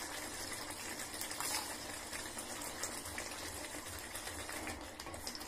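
Thick spinach gravy simmering in a pot on a gas stove, a steady bubbling with fine crackles.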